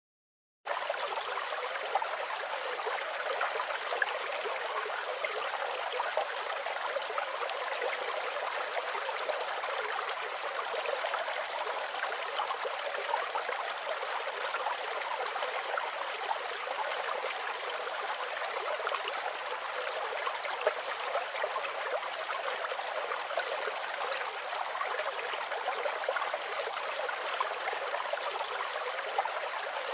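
Steady babbling and trickling of a small flowing stream, fading in abruptly just under a second in and then running evenly.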